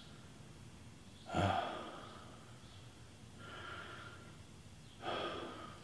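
A man breathing heavily, three audible breaths: a sharp one about a second in, a softer, longer one in the middle and another sharp one near the end.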